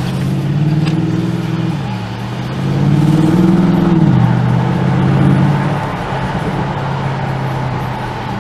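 Bentley Continental V8 S's 4.0-litre twin-turbo V8 with sports exhaust pulling under acceleration: the engine note rises, drops sharply about two seconds in and again about four seconds in as the gearbox shifts up, then settles lower and steadier.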